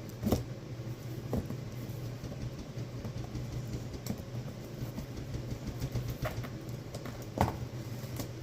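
Packaging being handled while a helmet box is opened: scattered knocks and clicks, a few seconds apart, over a steady low hum.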